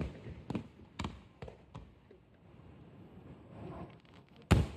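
Fireworks going off in sharp bangs, four or five within the first two seconds and a loud one near the end.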